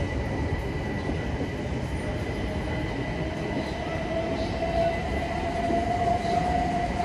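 Electric train running, with a continuous low rumble, a steady high whine, and a motor whine that rises slowly in pitch through the second half.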